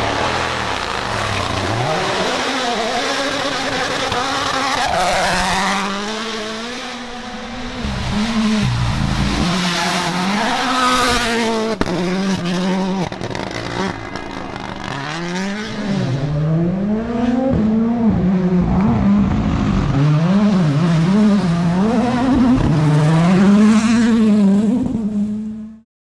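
Rally car engine revving hard, its pitch climbing and dropping again and again as the driver accelerates, shifts and lifts. The sound cuts off abruptly near the end.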